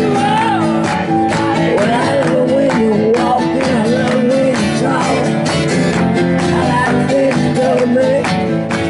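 Acoustic rock band playing live, unplugged: strummed acoustic guitars under a male lead vocal with a wavering melody line.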